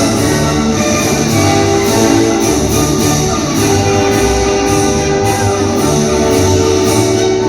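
Loud instrumental music with held notes and a regular beat.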